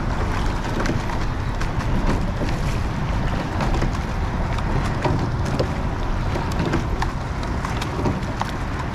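Wind buffeting the microphone over the running noise of an eight-oared rowing shell rowing at steady-state pace, with scattered light clicks and knocks from the oars turning in their oarlocks.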